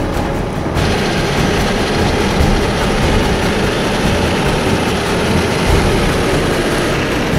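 Tow truck engine running steadily while the winch is worked to pull a mired pickup out. The sound brightens about a second in.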